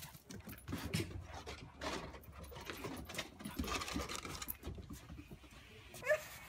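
Small dog scuffling and rolling on a wooden deck: irregular scrapes and taps of its body and claws on the boards, with some grunting noises. About six seconds in comes one short rising squeak.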